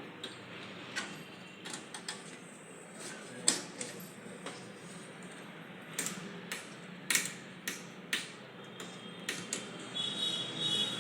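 Irregular clicks and knocks of small hard parts being handled, as in taking apart a desktop computer to change its fan, over a steady low hum.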